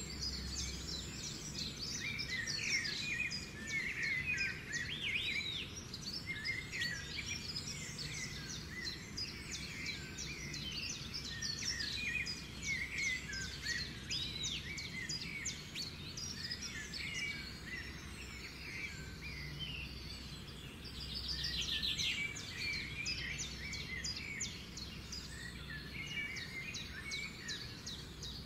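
A chorus of birds chirping and calling without a break, many short calls overlapping, with a fast trill about two-thirds of the way through, over a low steady rumble.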